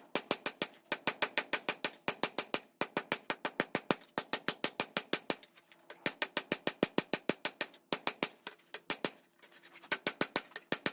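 Hammer blows on hot steel at the anvil, forging a knife blade from an old file. The blows come in fast runs of several strikes a second, broken by short pauses, each with a high ring.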